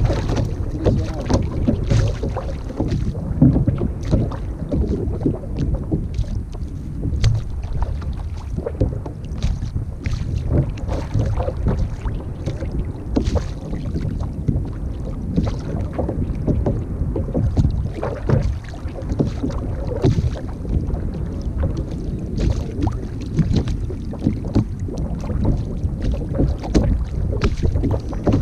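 Wind buffeting the microphone in a steady low rumble, with water lapping and slapping against a sit-on-top kayak's hull and many small scattered clicks and knocks.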